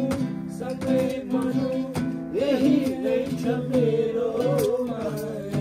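Nepali dohori folk song: a voice sings a wavering melody over plucked-string accompaniment, with regular percussion beats.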